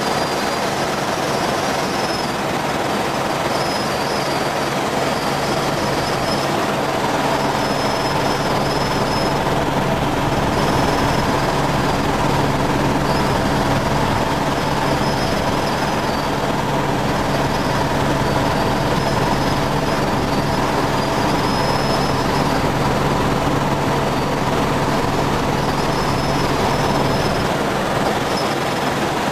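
Helicopter in flight: a steady, loud drone of engine and rotor with a high whine that comes and goes every couple of seconds.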